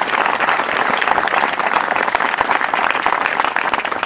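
A crowd of guests applauding, a dense patter of many hands clapping that slowly fades toward the end.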